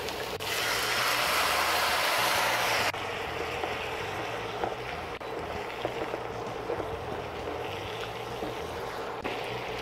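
Dry white wine hitting a hot wok of browned sliced chicken breast, sizzling loudly as it deglazes the pan. After a couple of seconds it drops suddenly to a steadier, quieter sizzle, with light scrapes of a spatula stirring the chicken.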